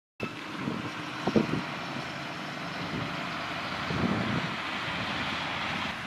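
Sugarcane harvester working through standing cane, a steady engine and machinery noise, with brief low rumbles about a second in and again about four seconds in.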